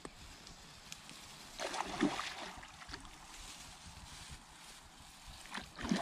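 A hooked pike splashing at the surface close to the bank as it is played in, in two bursts: about two seconds in and again near the end.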